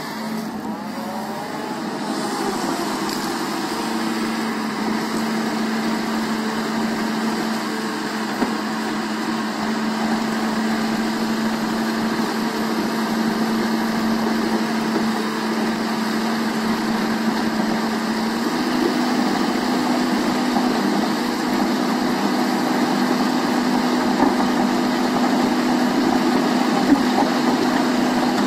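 Kobelco SK220 excavator's diesel engine and hydraulics running steadily while a Simex screening bucket works, sifting soil through its screen. A steady hum sits under the noise and steps slightly higher about two-thirds of the way through.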